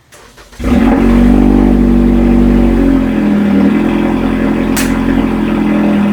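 A Toyota Camry's engine starts about half a second in. It runs slightly higher for the first couple of seconds, then settles to a steady idle.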